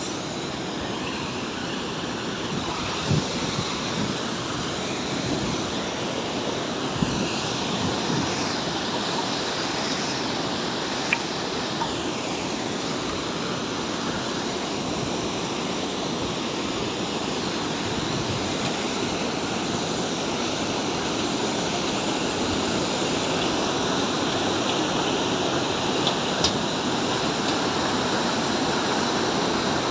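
Rushing water, a steady even noise that grows slightly louder toward the end, with a few brief faint clicks.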